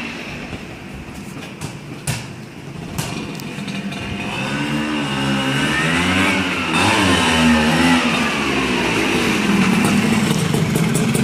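Vespa PX200 scooter's two-stroke single-cylinder engine revving, its pitch rising and falling as it is ridden closer and past, growing louder through the second half. Two sharp clicks sound about two and three seconds in.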